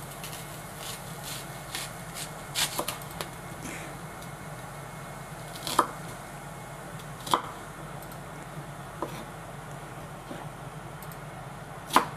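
Kitchen knife working an onion on a wooden cutting board: scattered, irregular knocks of the blade on the board, the loudest near the end, over a steady low hum.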